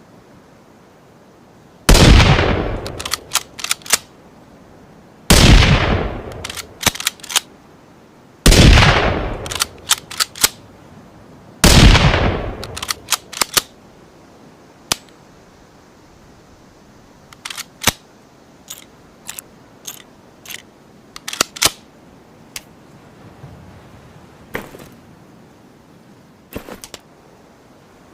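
Ruger American bolt-action rifle gunshot sound effect: four loud shots about three seconds apart, each with a long fading echo and a few quick clicks right after. Then a scattered run of sharp single clicks.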